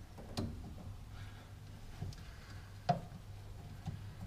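A few light clicks and taps of a hand tool and metal hardware at a car battery's cable terminal as it is fitted and tightened, the loudest about three seconds in, over a low steady hum.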